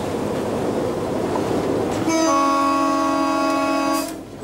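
Diesel locomotive running along the track, then its horn sounding one long blast of about two seconds, several tones together, starting about two seconds in and cutting off shortly before the end.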